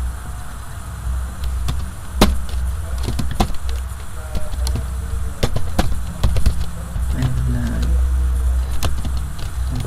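Computer keyboard being typed on: scattered, irregular key clicks over a steady low hum.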